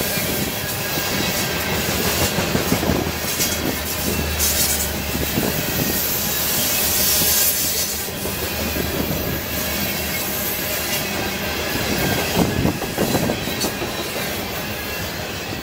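Norfolk Southern freight train rolling along the track: a steady rumble of rail noise with scattered wheel clatter.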